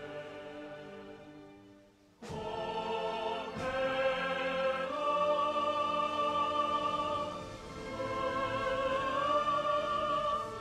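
Recorded choir and orchestra performing a national anthem with long held sung notes. The music fades almost away, then starts again abruptly about two seconds in.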